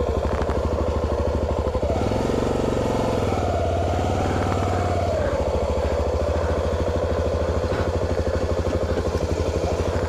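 Honda XR250 Tornado's single-cylinder four-stroke engine running at low revs with an even beat of firing pulses. It rises a little in pitch about two seconds in, then settles back to a steady idle.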